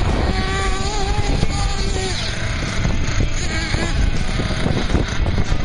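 Small nitro engine of a 1/8 scale RC truggy running at high revs, its whine rising and falling as the throttle is worked in bursts.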